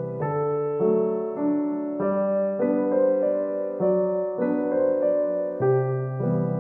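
Background piano music: gentle, steady notes and chords that change about every half second.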